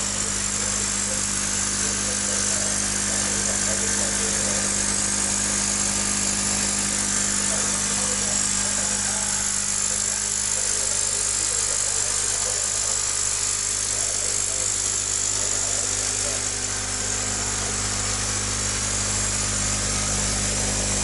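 Small electric air pump running with a steady hum and hiss, aerating a shallow basin of water through an air line.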